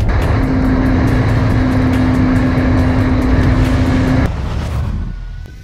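Sportbike engine running at a steady high pitch at speed, with loud wind rush on the helmet camera. About four seconds in the engine cuts off, and a fading rush follows.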